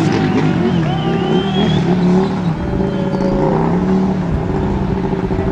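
Several racing superbike engines running and revving together, their pitch rising and falling.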